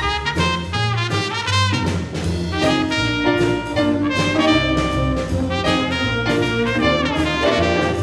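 A school big band playing a swing jazz chart: trumpets, trombones and saxophones in full ensemble over walking bass and drums with a steady beat.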